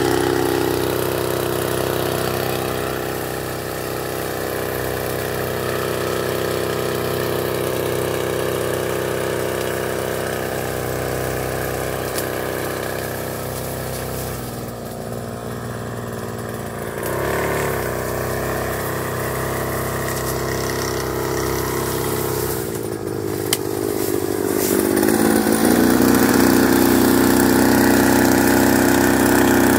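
Small engine of a Tanos motorised backpack sprayer running steadily while spraying. Its pitch sinks a few seconds in and climbs back up near the end.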